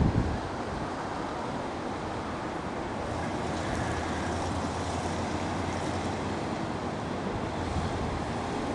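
Steady outdoor background noise with wind on the microphone, over a faint, steady low hum.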